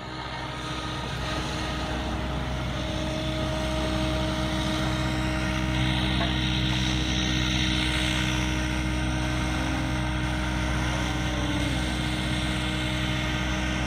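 Electric RC 3D helicopter flying aerobatics: the motor and rotor blades whirring with a steady whine of several tones, louder over the first few seconds. A stronger rush of blade noise comes between about six and nine seconds in.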